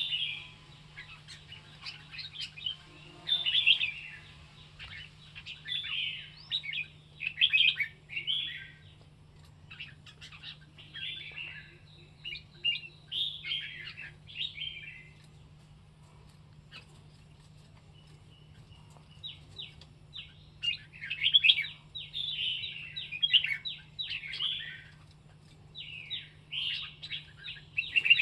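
White-rumped shama singing: a string of short, varied whistled and chattering phrases with brief gaps between them, falling silent for a few seconds midway before starting again. A faint steady low hum runs beneath.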